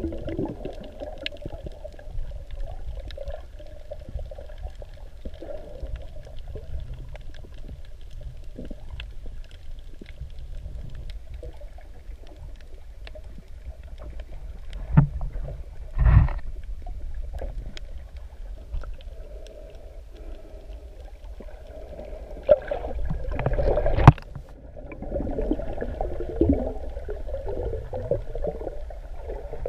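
Muffled underwater sound from an action camera filming below the surface: a steady low rumble of water with faint scattered ticks. Louder gurgling surges come about halfway through and again about three quarters of the way in.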